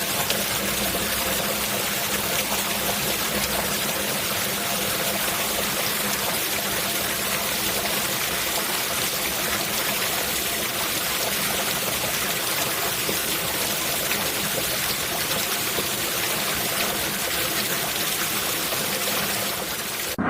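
Steady rain falling: an even hiss with many fine drop ticks, unchanging throughout.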